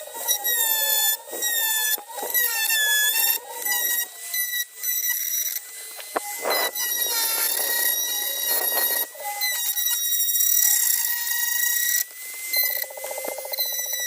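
High-pitched squealing whine from a small high-speed power tool working the plastic of a motorcycle fairing lug, wavering in pitch and cutting in and out every second or so.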